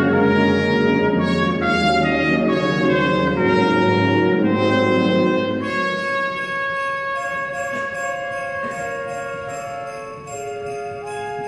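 High school symphony band playing, with the brass to the fore: a full, loud passage for about six seconds, then the low brass drop out and quieter held higher notes carry on, growing gradually softer.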